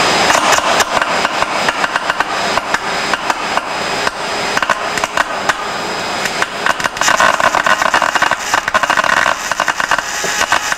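Electrical arcing across wet, nicked Poly-X (BMS 13-42A) insulated aircraft wires in 1% saline solution: a steady hiss with dense, irregular crackling pops. The arcing is intermittent wet arc tracking that never trips the circuit breaker.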